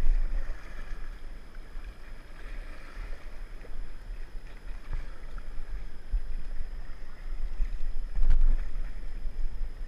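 River water and paddles working a whitewater raft, with wind rumbling on the microphone, and a couple of sharp knocks about five and eight seconds in.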